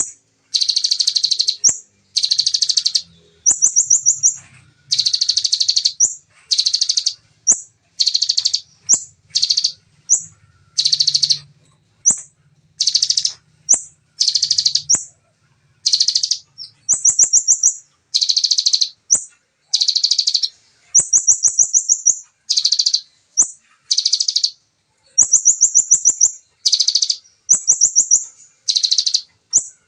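Bar-winged prinia (ciblek) singing its rapid 'nembak' song. Dense, high-pitched trilled bursts, each under a second, come back to back with short gaps between them, along with a few faint ticks.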